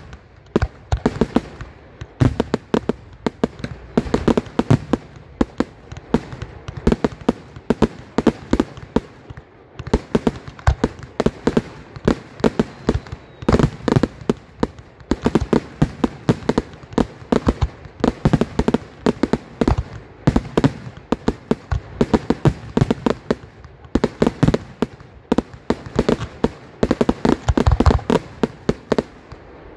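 Display fireworks going off in a continuous barrage: aerial shells launching and bursting, many sharp bangs a second, with a few brief lulls.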